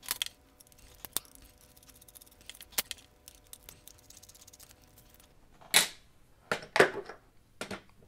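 Small screwdriver working Torx screws out of a plastic power-tool housing: a few sharp clicks over faint rapid ticking, then several louder knocks near the end as the tool is set down.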